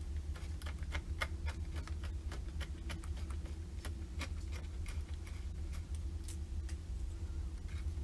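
Irregular small clicks and ticks from a screwdriver driving the screen-mount screws back into the laptop lid, thick for the first few seconds and then sparser. A steady low hum runs underneath.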